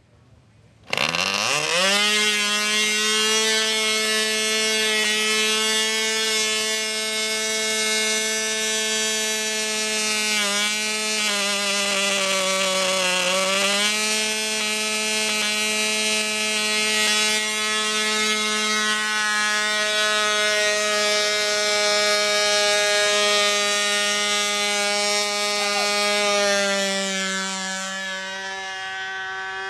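Small two-stroke model airplane engine revving up about a second in to a high, steady whine, dipping briefly in pitch twice midway. Near the end it grows fainter and slightly lower as the plane flies off.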